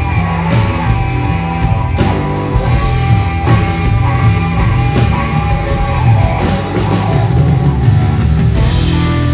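Live blues-rock band playing: a hollow-body electric guitar through an amplifier over a drum kit keeping a steady beat of about two hits a second.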